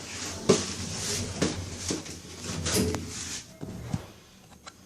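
A few sharp knocks and clatters over a background hiss, which fades about three and a half seconds in.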